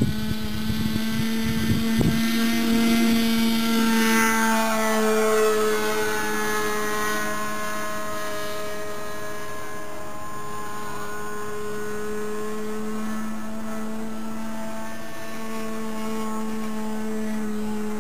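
SIG Kadet LT-40 radio-control model airplane engine running at high throttle during takeoff and climb-out, a steady buzzing drone with a few low thumps in the first two seconds. Its pitch falls a little about four seconds in as the plane flies by and away.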